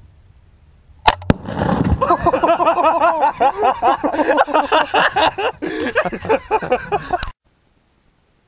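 A rifle shot at a tannerite target, with a second sharp crack right after it as the target detonates. Then several seconds of loud whooping voices, which cut off suddenly.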